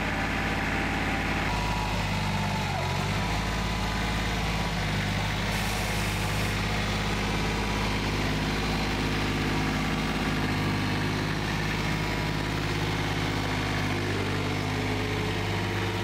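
Small diesel engine of a Yanmar YM1610 mini tractor running steadily at low revs. Its speed changes briefly a couple of seconds in.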